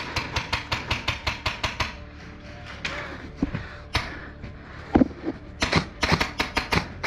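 Airsoft rifle firing rapid strings of shots, about eight clicks a second, for roughly two seconds. A few single shots follow, then another fast string starts near the end.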